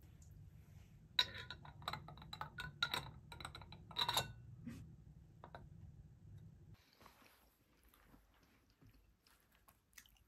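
A glass jam jar clinking in a quick run of sharp knocks that ring briefly, for about three seconds, followed by a few softer clicks as its metal screw lid goes on. Faint handling clicks follow.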